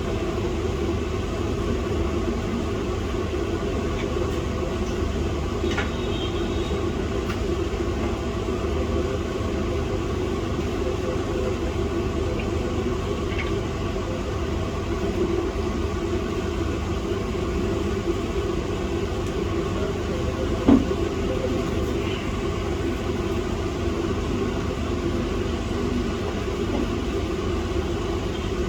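Steady mechanical hum with a low rumble, even throughout, and a single short click about two-thirds of the way through.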